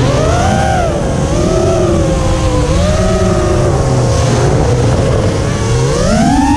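FPV racing quadcopter's four 2306 2400 kV brushless motors spinning 5-inch three-blade props, whining in a pitch that rises and falls with the throttle and climbs highest near the end. A rough low rushing noise runs underneath.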